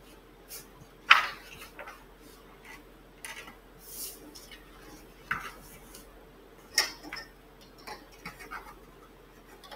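Scattered light clicks, knocks and rustles of paper and small objects being handled at a drawing board, the sharpest click about a second in.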